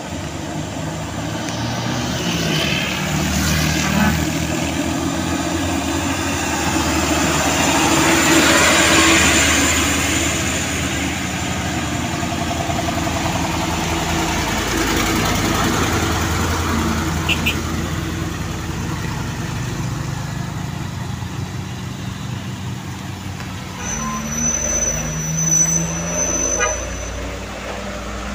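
Trucks and motorcycles driving past on a wet road: engines running with tyre hiss. The sound swells as a vehicle passes close about nine seconds in.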